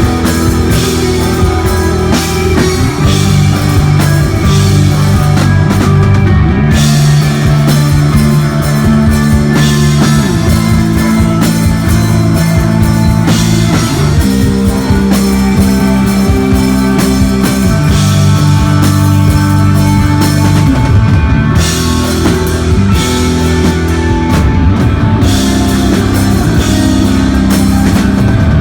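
Live desert rock band playing loudly: electric guitar, bass guitar and drum kit, with held bass notes that change every few seconds under a constant cymbal wash, and no singing.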